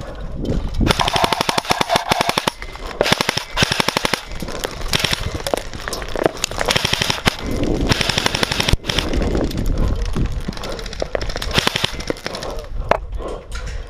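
Airsoft rifles firing in several rapid full-auto bursts, each a fast even stream of shots.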